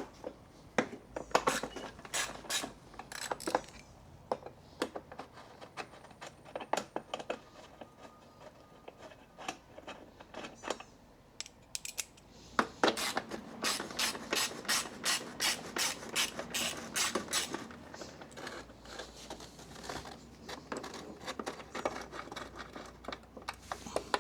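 Ratchet wrench clicking in runs of quick clicks, with clinks of tool handling, as the bolts holding a cover on a push mower's engine are undone.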